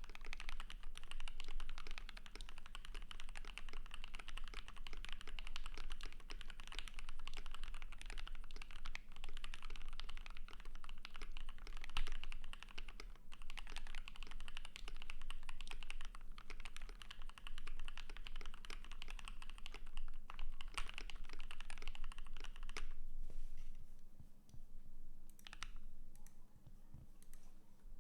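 Typing on a KBD67 Lite R3 mechanical keyboard with lubed and filmed C3 Equalz Tangerine linear switches, a polycarbonate plate and dye-sub PBT keycaps: a fast, steady run of keystrokes that thins to a few scattered strokes near the end.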